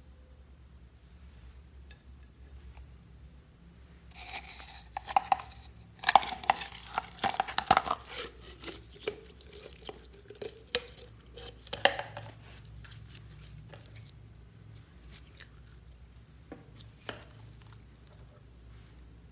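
Clear glitter slime handled by hand: wet squishing and crackling with sharp pops and clicks as it is pulled from a plastic tub into a glass bowl, densest about six to eight seconds in, then softer while it is stretched.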